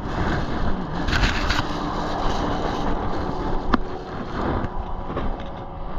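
Road traffic going by: steady tyre and engine noise, with a single sharp click a little past halfway.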